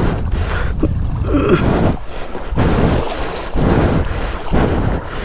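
Shallow water sloshing and splashing around a motorcycle as it is pushed back through it, surging about once a second, with wind rumbling on the microphone.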